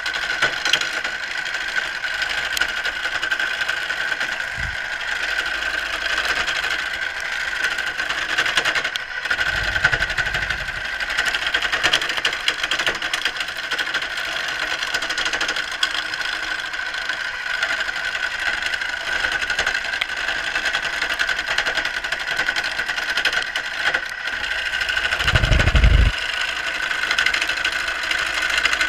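Craftsman wood lathe running while a carbide turning tool cuts a spinning wooden spindle: a steady whine with the hiss of the cut. Two short low rumbles, about ten seconds in and near the end.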